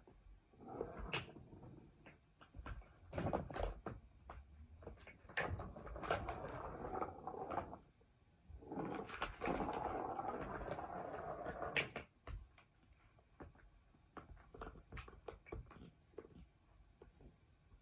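Cats playing with a plastic track-and-ball toy: stretches of rolling, rumbling rattle from a ball running around the track, broken by sharp clacks and knocks of paws striking the plastic. The longest run of rolling comes a little before the middle and ends abruptly.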